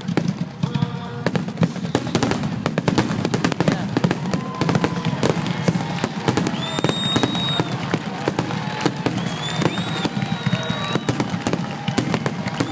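Fireworks grand finale: a dense, rapid barrage of bangs and crackles that does not let up, with high whistling tones sliding in pitch over it.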